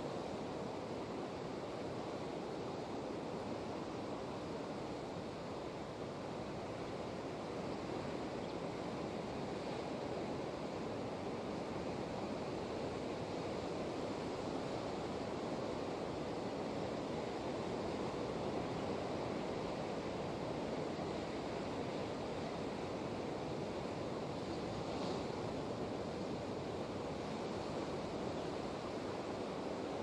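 Surf breaking on a rocky shore: a steady, unbroken wash of ocean waves.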